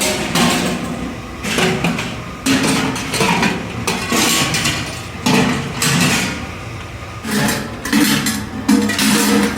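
Irregular metal clattering and banging, strokes coming unevenly about once a second, typical of aluminum kettle parts being worked and handled.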